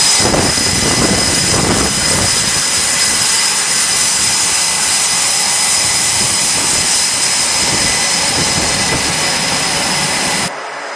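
Jet fighter engines (F/A-18 Super Hornets) running at close range: a loud steady rush with a high whine on top. It drops abruptly to a quieter rush near the end.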